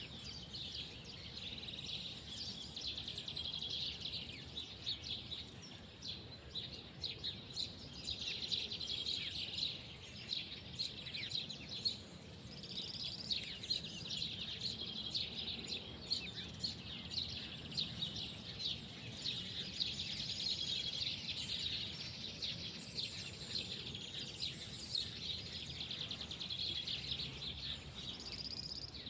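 Many small birds chirping and singing at once: a dense, continual chorus of quick high chirps over a low, steady background rumble.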